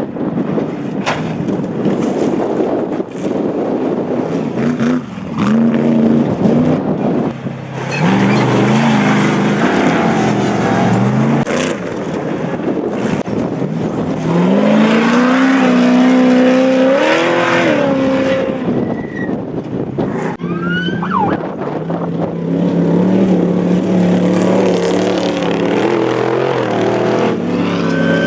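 Off-road race vehicles' engines running hard, their pitch climbing and falling again and again as they accelerate and shift. Several go by in turn.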